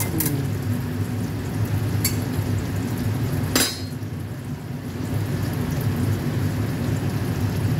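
A metal spoon clinking against a stainless-steel steamer basket a few times, the loudest clink about three and a half seconds in with a short metallic ring, over a steady low hum.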